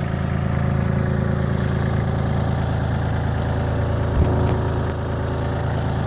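IHI 35N mini excavator's diesel engine idling steadily, with a brief knock about four seconds in.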